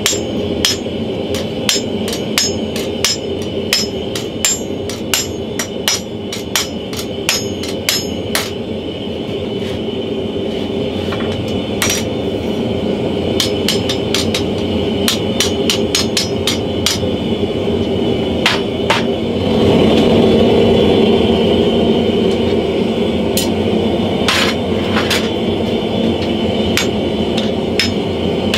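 Hand hammer striking a handled top tool held on red-hot leaf-spring steel over an anvil: sharp metal-on-metal blows about two a second for the first eight seconds, then in sparser runs. A steady roar from the forge runs underneath and gets louder about twenty seconds in.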